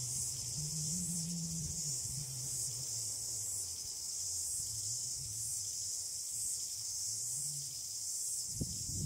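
Steady high-pitched chirring of an insect chorus such as crickets, over a low wavering hum.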